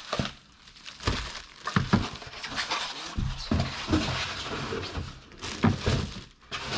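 Cardboard and packing material rustling and scraping, with irregular knocks and clicks, as a kettle is worked out of its tightly packed box.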